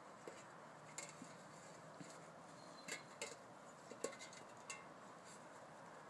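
Small metal watering can clinking and knocking as a corgi puppy mouths it and pushes it over grass: about seven light metallic taps, the loudest about four seconds in.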